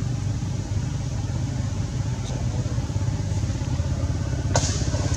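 An engine running steadily at low revs, a low even rumble. One short sharp click comes near the end.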